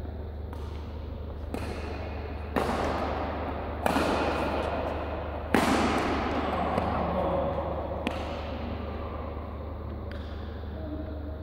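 Badminton racket strokes hitting a shuttlecock during a rally, a series of sharp cracks that ring on in the hall's echo. The three loudest come in the middle, a second or so apart. A steady low hum runs underneath.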